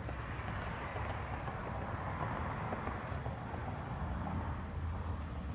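Steady outdoor background noise: an even hiss over a low rumble, like distant road traffic.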